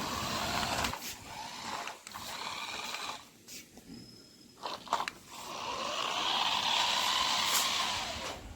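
Small electric toy-car motor whirring in spurts, each spell swelling and fading, the longest one near the end, with a few sharp clicks in between.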